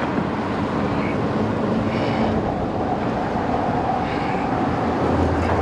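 Steady rumble of passing vehicles on a bridge, with a deeper hum coming in near the end.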